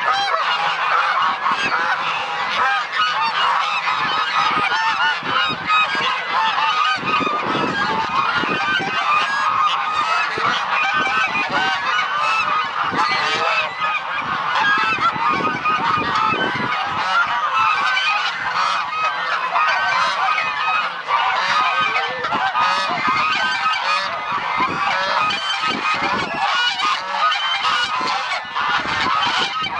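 A large flock of domestic geese honking without a break, many calls overlapping into a loud, continuous clamour.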